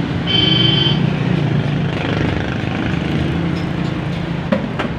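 Steady vehicle engine and traffic noise, with a short high tone lasting under a second near the start.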